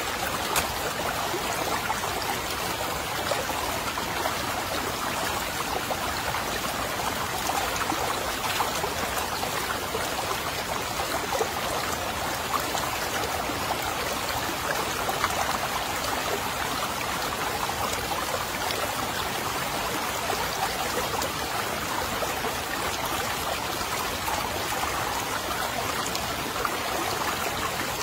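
Steady rushing and trickling of a shallow jungle stream, with a few faint small pops.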